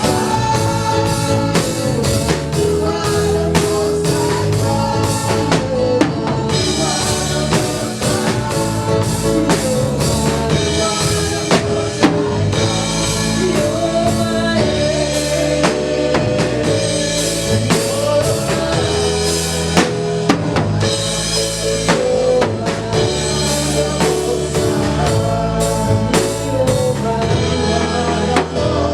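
Gospel music with a full drum kit, bass and keyboard playing a steady beat, with some singing.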